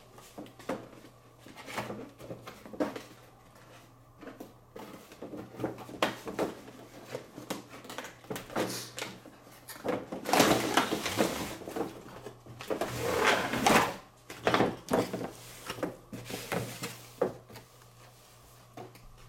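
A cardboard toy box being opened by hand: the flap is pulled open and the box is handled, with irregular knocks and scraping and rustling of cardboard and its plastic window. The handling is loudest from about ten to fourteen seconds in.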